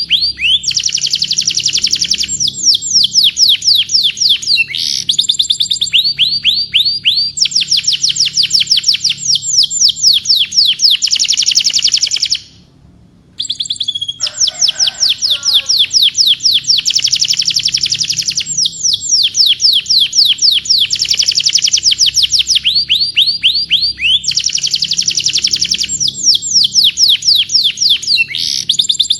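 Domestic canary singing rapid trills: fast runs of high, falling notes in phrases a few seconds long, with a brief break about halfway through.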